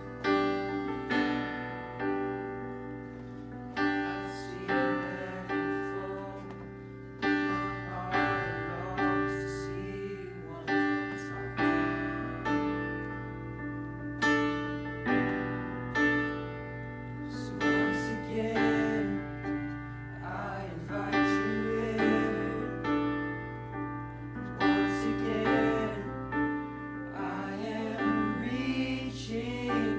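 Background music: piano chords struck at a steady pace, with something like singing in it.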